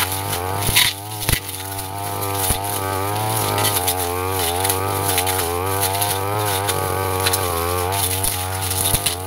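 Backpack brush cutter engine running at high speed, its pitch wavering as the spinning blade cuts through grass and woody saplings. A few sharp knocks in the first few seconds.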